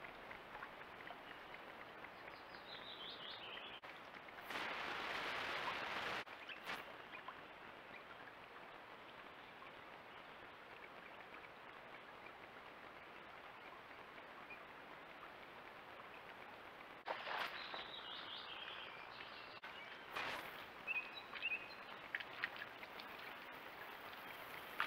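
Outdoor trail-camera ambience: a faint steady hiss with small birds singing at times, early on and again in the second half. The hiss grows louder for a couple of seconds around five seconds in, and the level jumps abruptly a few times.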